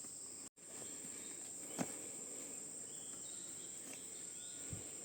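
Forest insects buzzing in a steady, high-pitched drone, with a single sharp click about two seconds in.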